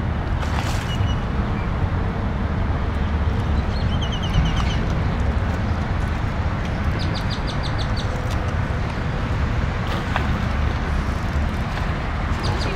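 Steady low outdoor rumble, with a few short runs of rapid high chirps near the middle.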